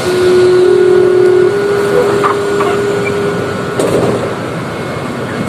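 Mexico City Metro train's door-closing buzzer sounding a steady tone, with a second slightly higher tone overlapping it, stopping about three seconds in, over the constant noise of the train and station.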